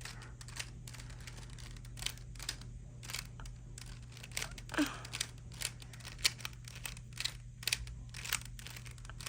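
Rubik's Cube layers being turned by hand: a string of short plastic clicks and clacks at an uneven pace, roughly two a second.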